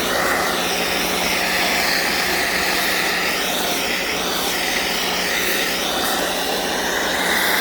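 Sun Joe SPX3000 electric pressure washer running with a foam cannon spraying snow foam: a steady loud hiss over a low motor hum, its tone shifting slightly as the spray moves over the bike.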